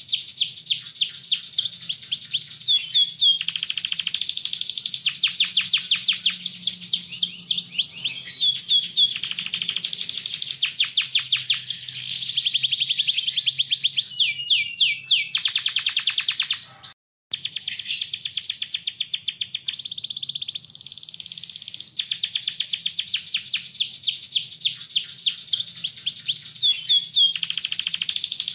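Domestic canary singing one long, unbroken-sounding song of fast, tightly spaced trills and rolls, high and rapid. The sound cuts out for a split second about two-thirds of the way through.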